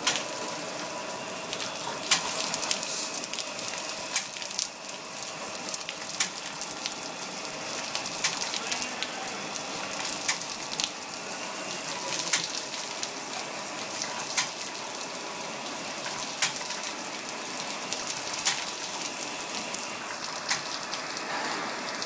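Pharmaceutical bottle washing machine running: a steady hiss of water spray, with a faint steady hum and a sharp click about every two seconds.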